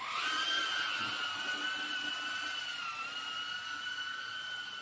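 A 3-inch cinewhoop quadcopter's four EMAX ECO II 2004 3000KV brushless motors spool up for takeoff, the whine rising sharply at the start. It then holds a steady high-pitched whine as the drone hovers, dipping slightly about three seconds in.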